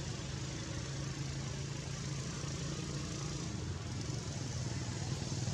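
A steady low engine hum, like a motor running at idle, under a continuous hiss.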